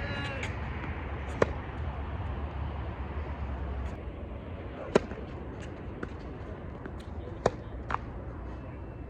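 Tennis ball struck by rackets and bouncing on a hard court during a rally: sharp pops a second or more apart, the loudest four near 1.5, 5, 7.5 and 8 seconds, with fainter ticks between, over a steady low hum.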